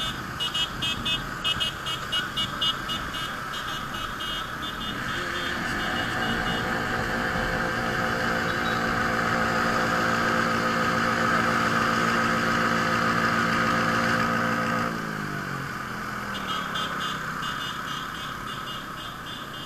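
Motorcycle engine under way, climbing in pitch as it accelerates, holding high revs, then dropping off about fifteen seconds in, over steady wind and road noise. A rapid high-pitched beeping runs through the first few seconds and again near the end.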